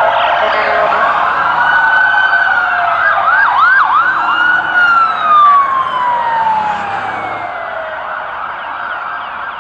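Emergency vehicle sirens wailing over street noise. One siren sweeps up, gives three quick whoops about three and a half seconds in, then glides slowly down, with other sirens sounding beneath it.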